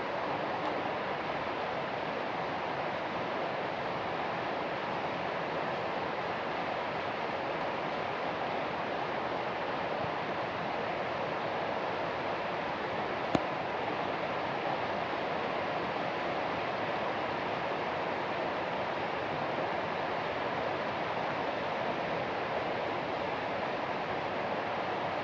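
Steady rain falling, an even hiss with no let-up. A single sharp click about halfway through.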